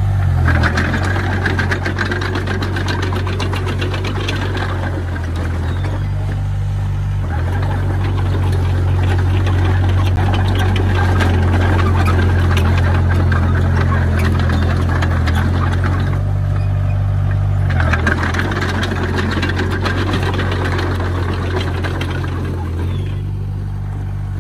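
Komatsu D20P bulldozer's diesel engine working under load, with a steady clatter over it. The engine note drops away and comes back up three times, about five seconds in, about sixteen seconds in and near the end.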